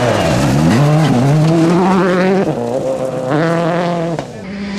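Ford Fiesta RS WRC rally car's 1.6-litre turbocharged four-cylinder engine at full throttle as it passes. The pitch drops as it goes by, then climbs and is held through the gears. There is a brief lift off the throttle about halfway through, and another near the end as the car moves away.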